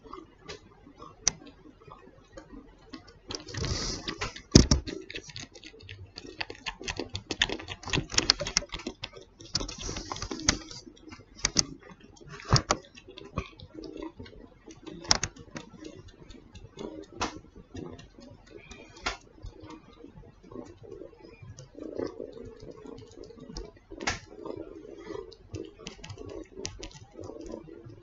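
A kitten suckling on a human earlobe: a quick, irregular run of small wet clicks and smacks from its mouth, with a couple of brief rustles.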